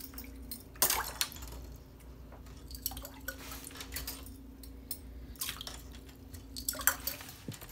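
Wooden topwater musky lure pulled through bathtub water on a line: its small metal kicker blade clicks against the spinning prop amid light splashing. The irregular clicks and splashes are loudest about a second in and near the end, over a steady low hum.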